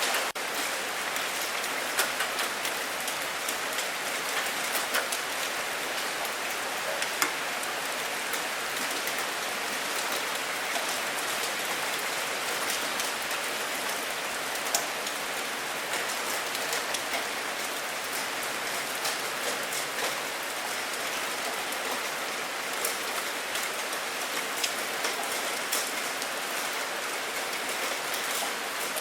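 Steady rain falling, an even hiss with many separate drop ticks scattered through it.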